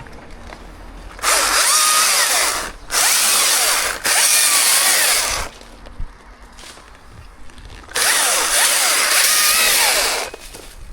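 Chainsaw revved to full throttle in four loud bursts, each lasting one to two seconds, dropping back to a low level between them, with the pitch wavering and sagging during each burst.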